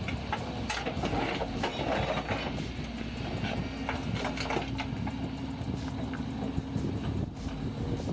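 Large Hyundai crawler excavator at work: engine running steadily with irregular clanks and knocks, and a steady hum that comes in about halfway through.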